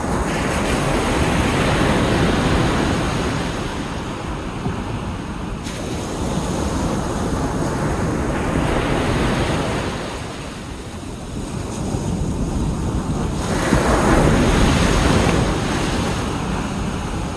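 Ocean waves breaking and washing up a beach in slow, repeated surges, the loudest one about two-thirds of the way through. Sea wind buffets the microphone underneath.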